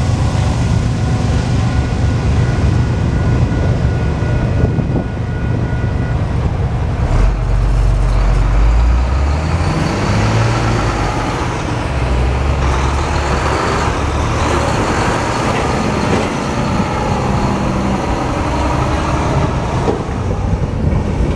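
Heavy trucks driving over a railroad grade crossing close by: a tow truck and then a tractor-trailer, engines rumbling and pulling away, with the loudest surge about seven to nine seconds in. A steady ringing tone, the crossing bell as the gates lift, sounds for the first six seconds or so.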